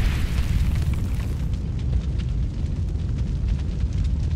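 Cinematic logo-reveal sound effect: a deep, steady rumble with a hissing swell that fades away about a second in, followed by faint crackles.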